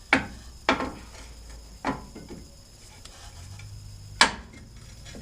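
Metal parts clanking: four sharp knocks spread over a few seconds, the loudest about four seconds in.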